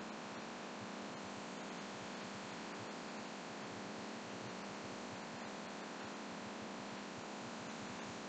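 Laminar flow hood's blower running: a steady rush of filtered air with a low hum under it.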